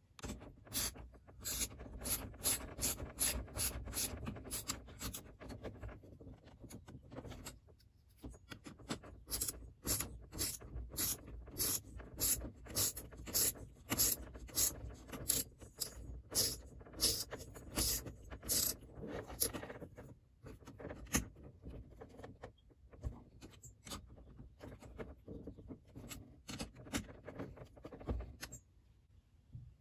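Ratchet wrench with a small socket clicking as it tightens the top shock-mount nut on an RC buggy's aluminium shock tower, about three or four clicks a second in steady runs. The clicks thin out to a few scattered ones after about twenty seconds.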